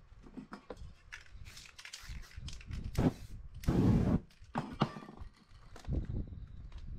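Scattered knocks and rustles of paper sheets being handled and pressed on the work surface, with a loud whoosh about three and a half seconds in as spray-paint fumes on the paper catch fire and flare up.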